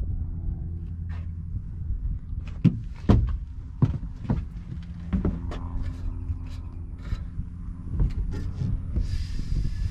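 Ram 1500 EcoDiesel's 3.0-litre V6 turbodiesel running while the truck drives, heard from the pickup bed as a steady low hum. Frequent sharp clicks and knocks sit over it, and a brief hiss comes near the end.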